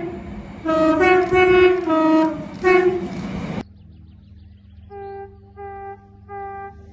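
A multi-chime train horn sounding several loud blasts, its chord shifting in pitch, over the noise of the moving train. About three and a half seconds in it cuts off suddenly to a quieter steady hum, with short toots of a single-note horn, about one every 0.7 seconds.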